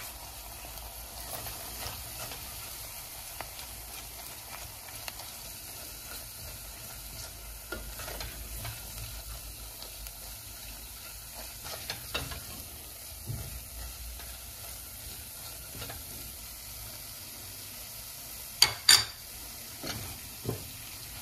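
Tomato and pepper paste frying with onion, pepper and flour in a pot, a steady sizzle while it is stirred, with small scraping clicks. Two sharp knocks near the end.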